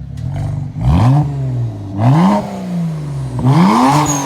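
BMW 335i's turbocharged inline-six, running through catless downpipes, revved in three quick throttle blips, each rising sharply and then sinking slowly back down.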